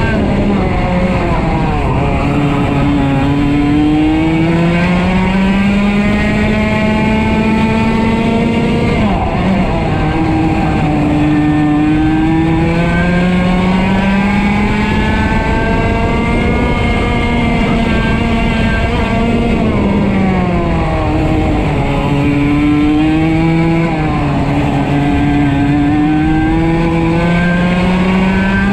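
125cc two-stroke kart engine at full race pace, heard from on board. Its pitch climbs steadily along the straights and drops sharply four times as the kart brakes for corners.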